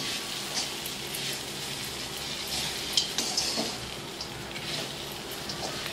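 Metal spatula stirring and scraping washed, drained puffed rice around a steel kadhai over low gas, with a soft frying sizzle from the oil beneath. A few sharper scrapes of spatula on pan stand out.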